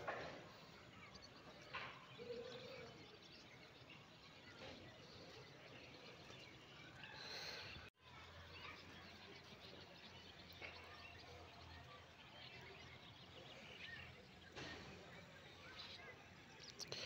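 Near silence: faint outdoor ambience with a few brief soft sounds, and a sudden dropout about eight seconds in where the footage is cut.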